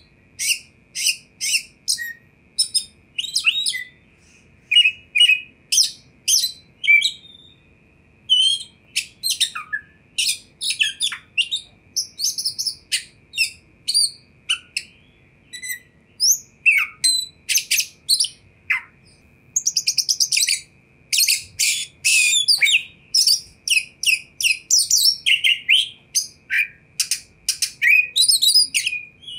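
Caged oriental magpie-robin singing: a long run of loud, short, sharp whistled and chirping notes delivered in quick groups separated by brief pauses.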